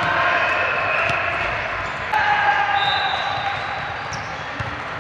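Indoor volleyball play in a reverberant gym: a few sharp ball hits among high squeaks and players' voices.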